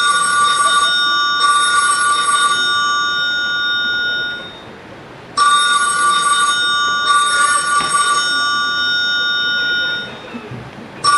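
Telephone ringing in repeated groups: a short ring, then a longer one of about three seconds, then a pause of about a second. The pattern comes twice, and a third group begins near the end.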